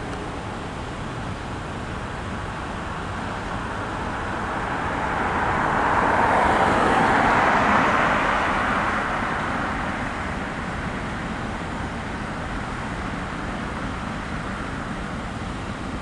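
A car passes close by, its tyre and road noise swelling to a peak about seven seconds in and then fading, over the steady rumble of a freight train rolling past.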